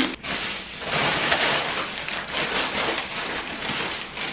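Plastic grocery bags and foil snack bags rustling and crinkling as groceries are handled. It starts suddenly and runs on as a dense crackle.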